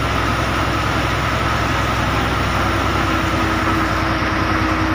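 Engine of a bus running steadily with road noise on a wet road, heard from inside the cabin.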